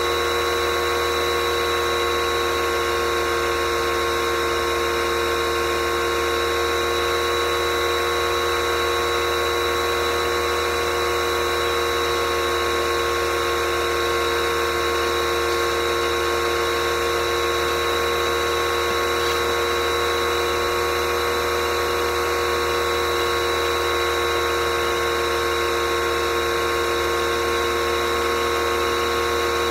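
Electric pressure washer's motor and pump running steadily under load with a constant whine, its spray jet hissing as it washes a car.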